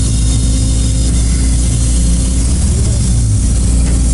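Large truck's engine running steadily.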